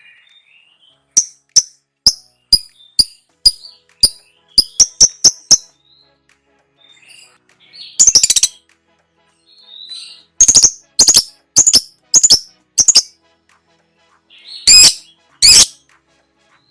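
Lovebird calling loudly: a quick series of sharp, high-pitched short notes, about two a second, then a longer harsh burst, another run of notes, and two longer harsh bursts near the end.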